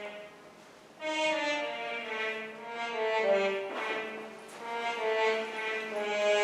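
Slow instrumental music of long held, overlapping notes. It dips briefly near the start and swells back in about a second in.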